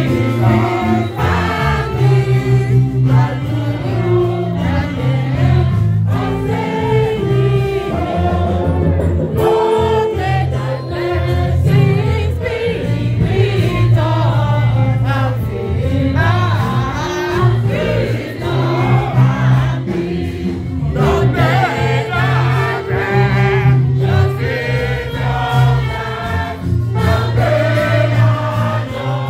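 Congregation singing a hymn together in full voice, men and women.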